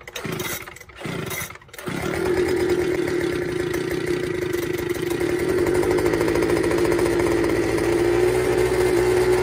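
Husqvarna YTH 2042 riding mower's 20 hp engine cranked in two short bursts, then catching about two seconds in and running steadily.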